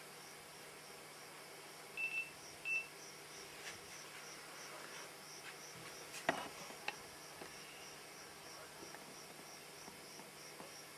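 Cricket chirping in evenly repeated high pulses, about three a second. Two short high beeps come about two seconds in, and a few sharp clicks near the middle.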